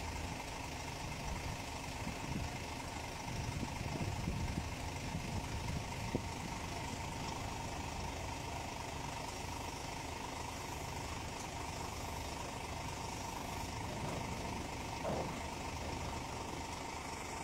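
Heavy diesel engine running steadily at low revs, with a faint steady whine alongside.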